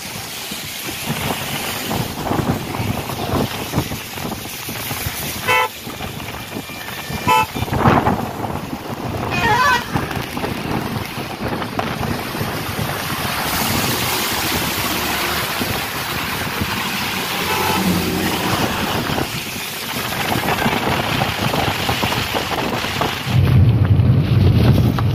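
Road and wind noise of a car driving on wet roads in the rain, heard from inside the car. Short vehicle-horn toots sound about five, seven and nine seconds in. A louder low rumble sets in near the end.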